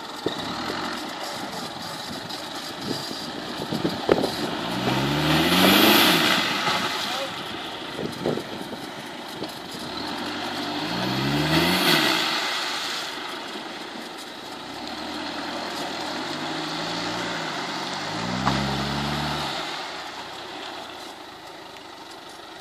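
Land Rover 4x4 engine revving hard in three surges, each rising in pitch, as the vehicle drives through a deep, water-filled mud rut. The two strongest surges come with a rush of tyres churning mud and water.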